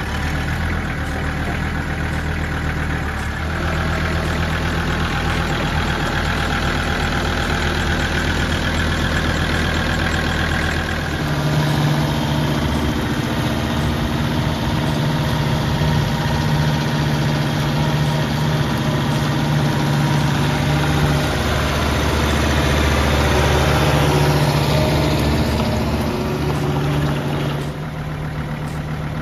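Kubota ME5700 tractor's 2746cc diesel engine running steadily. Its speed rises about a third of the way through as the tractor is driven, holds there, then drops back to a lower, idle-like note near the end.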